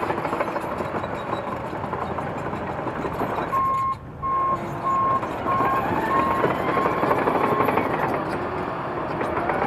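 S12X Vita Monster mobility scooter running over rough ground, with steady motor and tyre noise. Its drive drops out briefly a few seconds in, then a reverse warning beeper sounds about twice a second for roughly four seconds as the scooter backs up.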